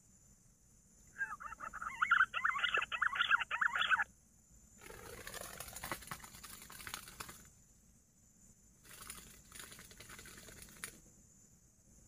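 A warbling, whistled green-pigeon (punai) call for about three seconds, followed by two quieter stretches of rustling with quick flutters.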